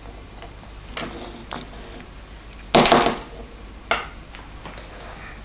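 Small metal parts (bolt, washers, bearing and Allen key) clicking and clattering on a wooden workbench as a band saw guide is taken apart. A few light clicks, then a louder clatter about three seconds in and one more knock just after.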